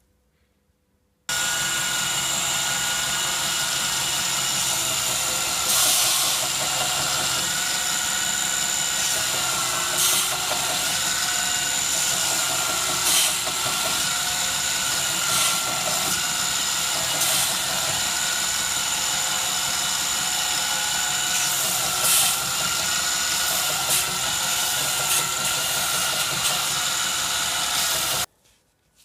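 An electric power tool running steadily with a constant whine, with a few brief scrapes or knocks scattered through it. It starts suddenly about a second in and cuts off suddenly near the end.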